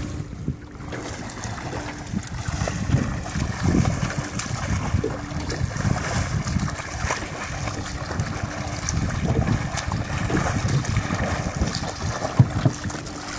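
Wind buffeting the microphone, with lapping water and the splashing of a swimmer's strokes. A low steady hum comes and goes underneath.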